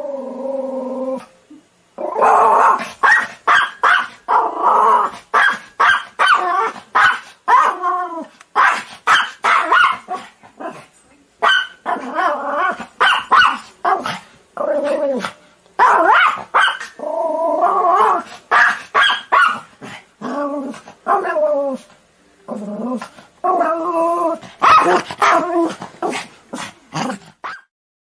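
German Spitz barking over and over in quick runs of short barks with brief pauses between them. It opens with one longer drawn-out call, and the barking stops shortly before the end.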